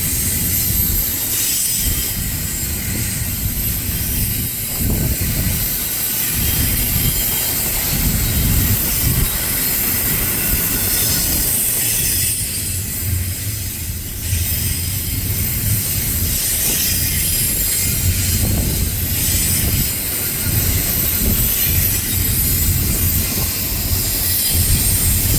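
Freight train cars of an intermodal container train rolling past close by: a steady low rumble of steel wheels on rail with a high-pitched wheel squeal over it.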